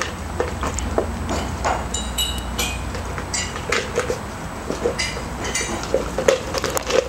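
Dry kibble rattling and clinking in a stainless steel bowl as a Miniature Pinscher puppy eats from it and paws at it: a scattered run of sharp metallic clinks, some with a short ring.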